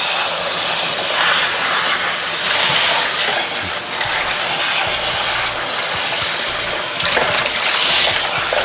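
Kitchen tap running, water splashing into a cooking pot as it fills.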